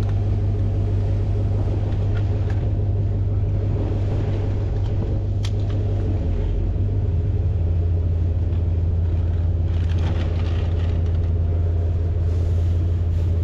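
A vehicle engine running steadily at idle, a low even rumble with a deep hum.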